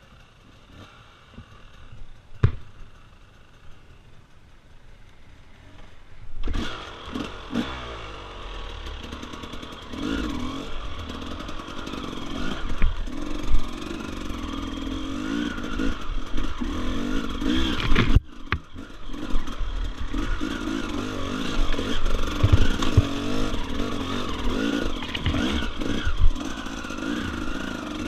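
Enduro dirt bike engine revving up and down as it is ridden. It is faint at first, with one sharp knock a little over two seconds in; the engine comes in loud and close about six seconds in, rising and falling in pitch with the throttle, and briefly cuts out about two-thirds of the way through.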